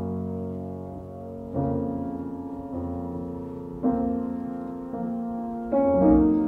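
Slow piano music: sustained chords that ring on, a new one struck every second or two, the loudest near the end.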